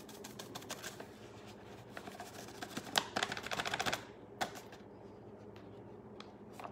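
Dry pizza crust mix pouring from its bag into a stand mixer's steel bowl, the bag crinkling and rustling, busiest about three to four seconds in. After that, only a few light ticks as the emptied bag is handled.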